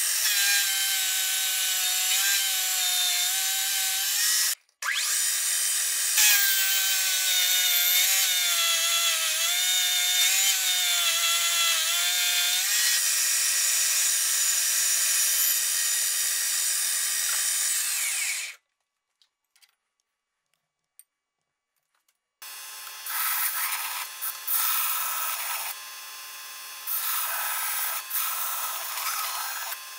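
Vertical milling machine cutting a steel flat bar: a loud, steady cutting noise with a high, wavering squeal, broken once by a brief gap and stopping about two-thirds through. After a few seconds of quiet, a belt grinder runs, louder in stretches as the steel bar is pressed against the belt.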